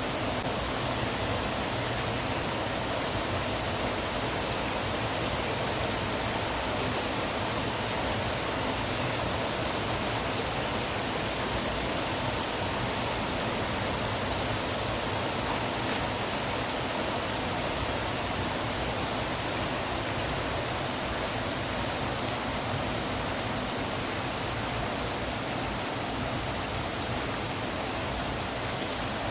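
Heavy rain pouring down, a dense steady hiss with no single drops standing out.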